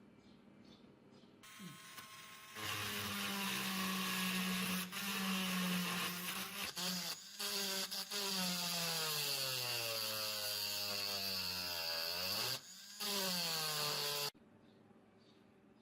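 Electric power tool motor running steadily, its pitch sinking gradually over several seconds before picking back up, then stopping abruptly near the end.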